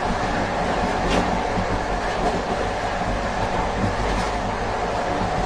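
Noise between the cars of a moving train: a steady rumble of wheels on rails and the car gangway, with a faint steady whine and one sharp clack about a second in.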